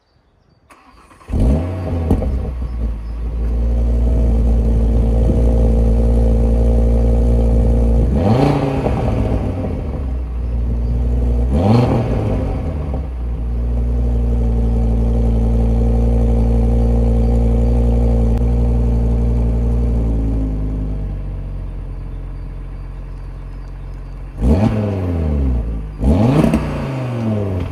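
Cupra Formentor VZ5's 2.5-litre turbocharged five-cylinder engine, heard from the rear at its quad exhaust. It starts about a second in and holds a fast idle, with two sharp rev blips around 8 and 12 seconds in. The idle drops lower around 21 seconds in, and a quick series of blips comes near the end.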